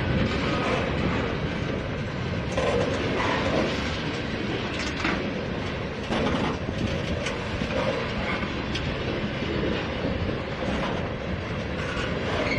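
Freight train of tank cars rolling past close by: a steady rumble of steel wheels on rail with clicking over the rail joints and a few sharp clanks.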